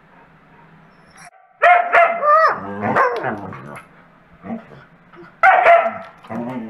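Dogs vocalizing: after a quiet second and a half, a loud, wavering yowl whose pitch bends up and down, trailing off into lower falling grumbles, then another loud yowl near the end.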